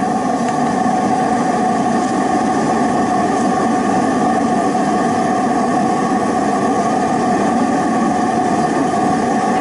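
Waste-oil burner furnace running, fed with air and fuel oil: a steady rushing roar with a constant whine over it, unchanging throughout.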